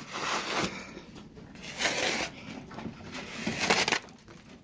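Snow and ice being scraped and brushed off a horse's blanket in a run of quick sweeping strokes, several to the second, some with a crunch.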